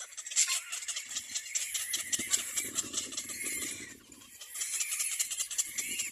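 Little black cormorant chicks in the nest making a dense, high raspy crackle of quick clicks, with a brief drop-out about four seconds in.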